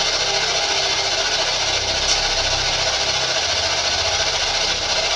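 Steady hiss with a low, rhythmic pulsing hum beneath it, and one faint tick about two seconds in.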